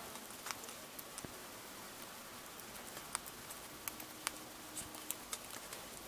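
Golden hamster chewing a flat-horn hissing cockroach, with irregular sharp crunches and clicks as its teeth break the roach's hard shell.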